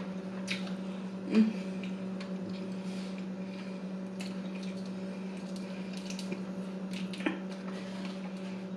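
Close-miked chewing and wet mouth sounds from eating a soft slider cheeseburger: irregular squishy smacks and clicks, one louder about a second and a half in and another near the end. A steady low electrical hum runs underneath.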